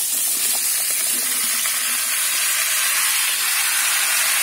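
Sliced raw potatoes tipped into a frying pan of hot rendered pork fat, a few pieces knocking in at first, setting off a loud, steady sizzle of frying.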